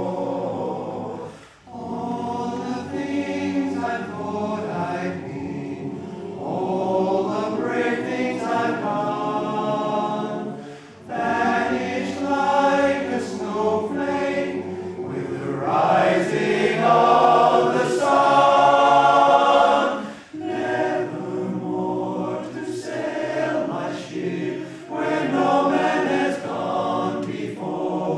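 Men's barbershop chorus singing a cappella in close four-part harmony, with brief breaks between phrases and swelling to its loudest about two-thirds of the way through.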